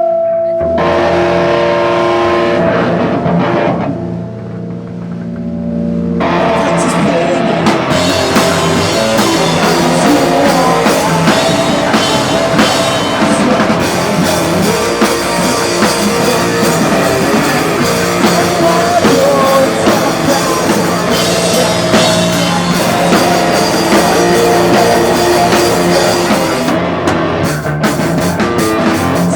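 Live rock band starting a song: sustained electric guitar chords ring for the first few seconds, then drums and guitars come in together at full volume about six seconds in and play on steadily.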